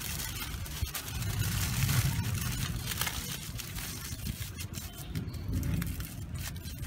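Aluminium foil crinkling and rustling as it is squeezed by hand around a ball of soil, over a low rumble that is loudest about two seconds in.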